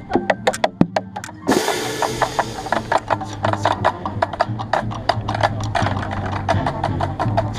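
Marching band playing, heard up close from within the bass drum line: rapid, even clicking percussion, then about a second and a half in a loud crash rings out as the full band comes in. Sustained low brass tones follow under steady drum hits.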